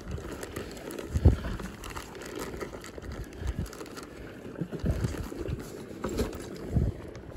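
Plastic zip-top bag crinkling and a towel rustling as they are handled inside an insulated soft cooler bag, with low handling bumps; the sharpest bump comes about a second in.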